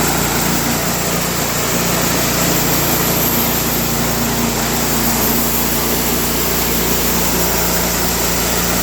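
Engine of a Wood-Mizer LT15 portable band sawmill running steadily.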